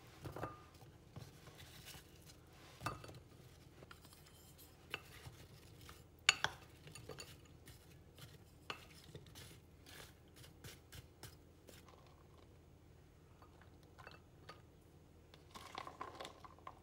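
Dishes and cutlery clinking and tapping while food is handled, in scattered knocks. The sharpest clink comes about six seconds in, followed by a run of small quick taps and a softer clatter near the end.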